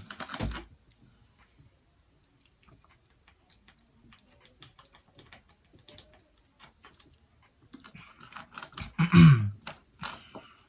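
Close-up sounds of a person chewing spicy noodles: many soft, wet mouth clicks. About nine seconds in there is a brief louder voiced sound.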